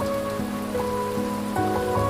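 Steady rain mixed with slow piano music, a new note or chord sounding every half second or so.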